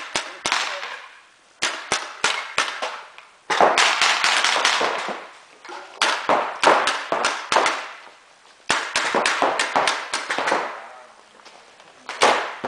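Paintball markers firing reusable rubber reballs: bursts of sharp pops, a dense run about four seconds in, echoing in a large sports hall.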